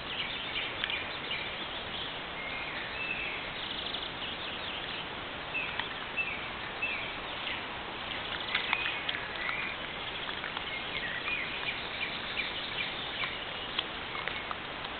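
Birds singing, a series of short sloping call notes repeated every second or two, over a steady hiss from a trail camera's microphone, with a few faint clicks.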